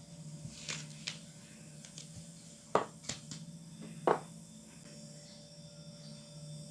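Small clicks and taps from handling a nail polish bottle and brush, two of them sharper, near the middle, over a steady low hum.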